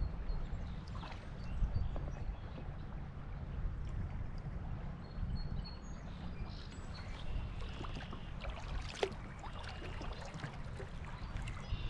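Kayak moving on river current: a steady rush of water under a low rumble, with a few short splashes or knocks from paddling.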